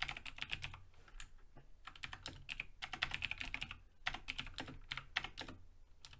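Typing on a computer keyboard: quick runs of keystroke clicks in several short bursts with brief pauses between them.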